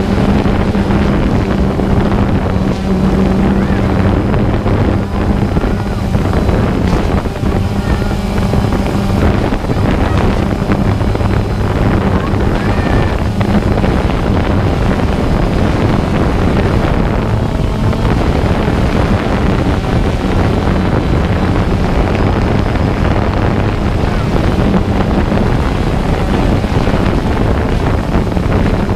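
Small camera drone's propellers and motors buzzing steadily up close, with a held hum.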